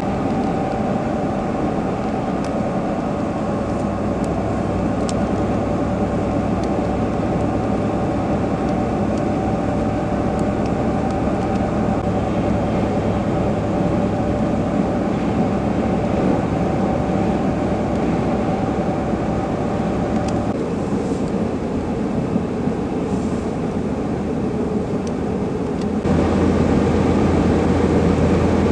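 Steady road and engine noise of a car driving on a highway, heard from inside the vehicle, with a low drone and a few steady tones. The sound shifts in character twice, about twenty and twenty-six seconds in.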